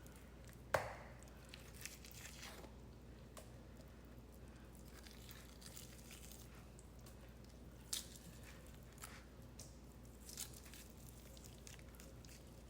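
Faint wet squishing and tearing of cooked rotisserie chicken meat being pulled apart by hand, with a sharp tap just under a second in and another near eight seconds.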